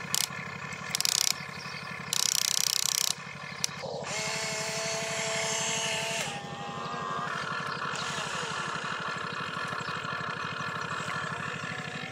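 Toy RC excavator's small electric motors and gearboxes whirring as the boom lifts and the bucket curls, over a steady buzzing hum. Three short, loud grinding bursts come in the first three seconds, then a steadier whine holds for a couple of seconds from about four seconds in.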